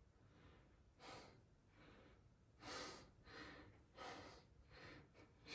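Faint, uneven breathing of a man holding back tears: about six short, shaky breaths with no words.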